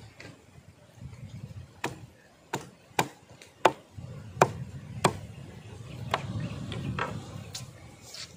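A curved machete chopping through raw chicken into a wooden log chopping block: about eight sharp chops, roughly one every three quarters of a second, the first about two seconds in.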